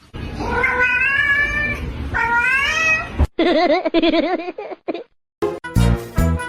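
A cat meowing: two long, drawn-out, wavering meows. After a sudden cut, a different wavering cry follows, and music with a steady beat starts near the end.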